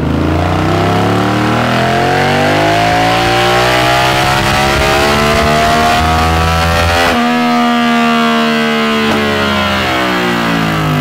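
Yamaha VMAX V4 engine pulling hard under load on a chassis dynamometer, its pitch climbing steadily for about seven seconds. The rider then lets off: the sound breaks off sharply and the engine winds down to a lower, steadier note.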